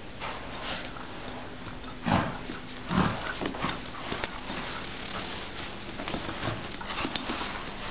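A small dog scuffling and tugging at a padded fabric cat bed with a cat in it, the bed rubbing and scraping over a rug, with two louder low bumps about two and three seconds in.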